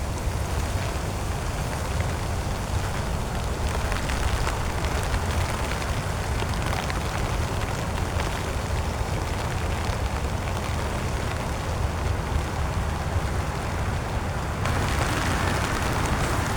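Heavy rain pattering steadily on a tent, with a low rumble underneath. The rain grows louder near the end.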